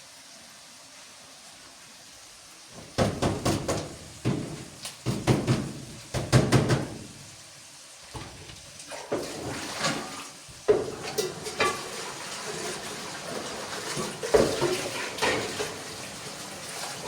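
Pots, dishes and utensils clattering and knocking, as in cooking or kitchen work. The clatter starts about three seconds in, after a low steady hiss.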